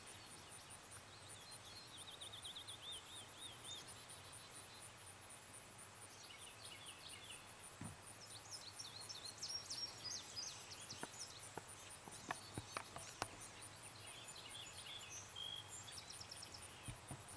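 Quiet outdoor ambience of songbirds singing short, high trilled phrases over a steady, fast, high-pitched insect pulse, with a few faint clicks around the middle.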